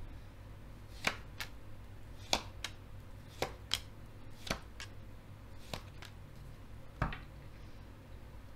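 Tarot cards being shuffled by hand: about eleven sharp snaps of the cards, mostly in pairs a third of a second apart, coming every second or so. A steady low hum sits underneath.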